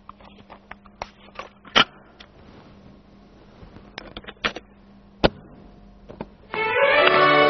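A clear plastic cassette case is opened and a cassette loaded into a portable cassette recorder: a string of sharp plastic clicks and clacks, the loudest about two seconds in and just past five seconds. A recorder key clicks down and music starts near the end.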